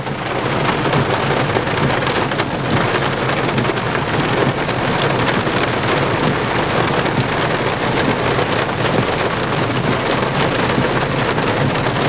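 Heavy rain pouring steadily, drumming on the car it is heard from inside.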